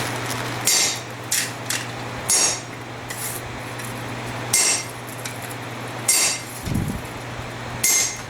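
A hammer striking a flatter held on hot steel at the anvil: about seven irregularly spaced blows, each with a short bright metallic ring, over the steady hum of a shop fan.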